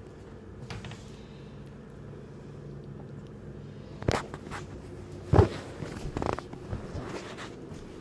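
A few short thumps and knocks, the loudest about five and a half seconds in, over a steady low hum.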